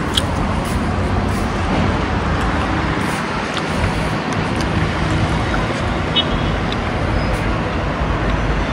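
Steady street traffic noise rising from the road below.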